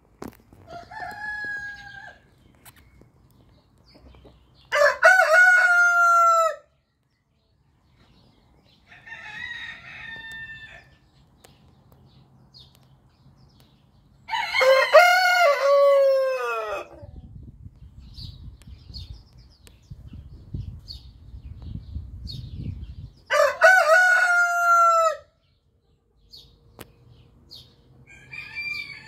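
Orpington and Marans roosters crowing: three loud crows of about two seconds each, several seconds apart, with fainter crows in between.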